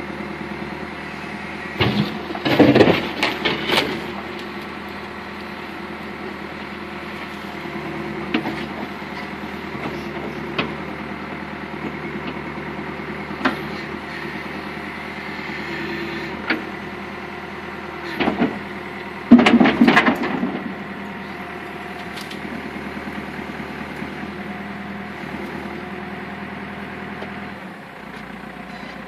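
Backhoe engine running steadily, with two loud clusters of sharp cracks and knocks, about two seconds in and again about two-thirds of the way through, as brush is torn out, and a few single knocks between.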